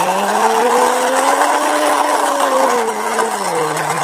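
A person imitating an engine with their voice, a rough buzzing "brrr" drone, for a toy vehicle being driven along. Its pitch rises over the first second or so, holds, and drops near the end.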